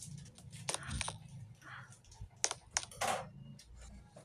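Scattered light clicks and taps, a few louder ones about two and a half to three seconds in, over a faint low hum.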